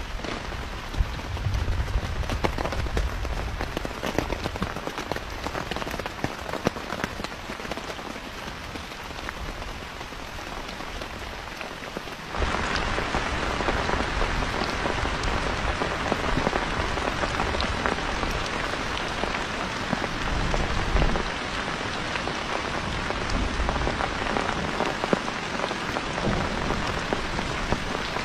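Steady patter of rain on a surface, a dense hiss with many small drop clicks, which turns suddenly louder and brighter about twelve seconds in.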